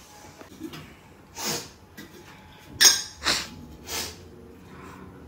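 A person sniffling, a few short sharp sniffs through the nose, the loudest about three seconds in, as her eyes water from cutting pungent onions.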